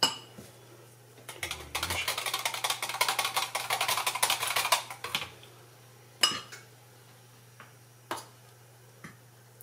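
Wire whisk beating flour into water in a plastic jug: a fast run of clicking strokes for about four seconds. A few separate knocks follow as a spoon adds more flour.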